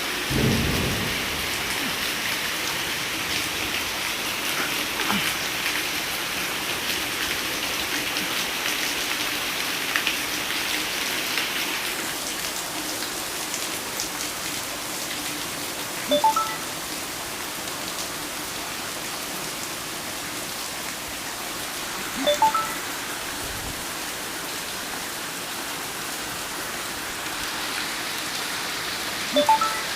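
Heavy water falling steadily like a downpour onto motorcycle tank bags, heavier for the first dozen seconds and then easing a little. Three short high chirps sound about six seconds apart in the second half.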